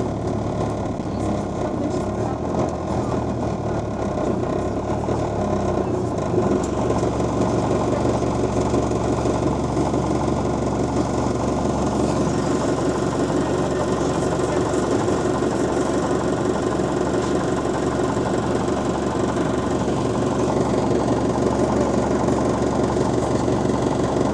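Double-decker bus's diesel engine running as the bus drives along, heard from inside the bus. It is a steady, even drone that grows a little louder about six seconds in and again near the end.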